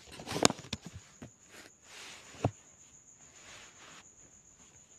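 A few scattered clicks and light knocks, the loudest about half a second in and another about two and a half seconds in, over a faint steady hiss with a thin high whine.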